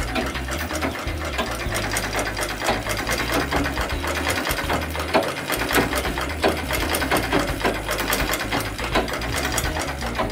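Foot-treadle sewing machine running steadily as it is pedalled, the needle mechanism giving a rapid, even ticking.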